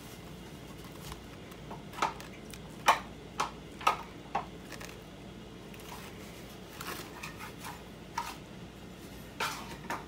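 A plastic piping bag crinkling and ticking in the hand as green buttercream is squeezed out into teardrop shapes. There are several short sharp crackles, most of them between about two and four and a half seconds in, over a faint steady hiss.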